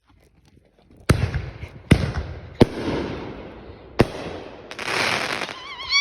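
Consumer fireworks going off: four sharp bangs roughly a second apart, with crackling and hissing between them and a dense crackle near the end. A short high wavering squeal at the very end.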